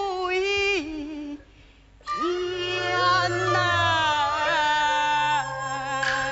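A woman singing an ornamented Chinese opera aria, her voice wavering and sliding with vibrato. She breaks off briefly about a second and a half in, then comes back on long held notes over low instrumental accompaniment.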